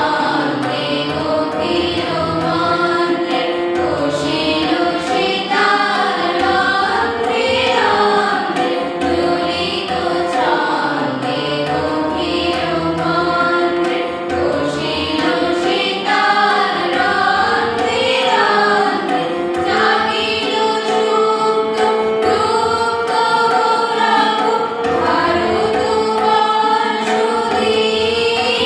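A group of young voices singing a song together, accompanied by tabla strokes and a harmonium's held notes.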